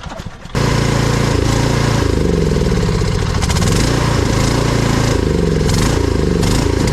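Cub Cadet XT1 riding lawn mower's engine running steadily while the mower is driven, blades disengaged. The sound jumps abruptly louder about half a second in.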